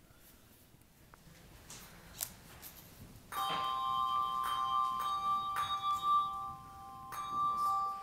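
Several handbells struck together about three seconds in, sounding a ringing chord that is struck again a few more times and rings on. Before that, only faint clicks and handling noises.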